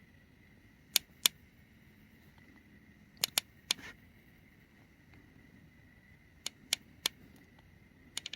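Eight or so short, sharp clicks and taps in three small groups, from a lighter and wiring being handled while heat-shrink tubing is shrunk over a soldered wire joint, with a faint steady high whine underneath.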